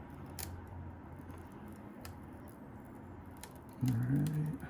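Faint crackling and a few sharp ticks as an iMac display adhesive strip is peeled slowly off the lower panel, over a steady low hum.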